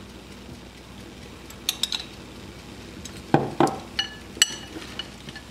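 Metal spoon clinking against a glass jar and a glass salad bowl while scooping mayonnaise onto a salad. Short ringing clinks come about two seconds in and again around four seconds, with two duller knocks in between.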